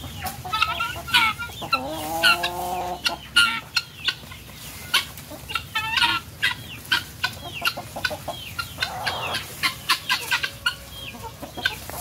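Backyard chickens and guinea fowl calling: a run of short, sharp clucks and cries, with one longer drawn-out call about two seconds in.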